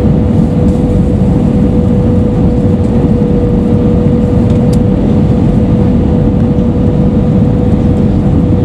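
Airbus A320 cabin noise over the wing on final approach: a steady rush of engines and airflow, with a steady whistling tone running through it.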